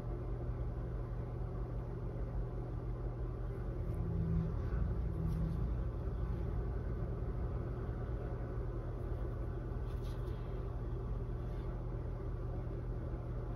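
Steady low hum, with a couple of faint ticks about five and ten seconds in.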